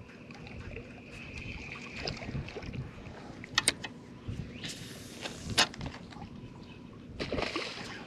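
Water sloshing and splashing around a small fishing boat, with a few sharp clicks about three and a half seconds in and short splashy washes around five and seven seconds.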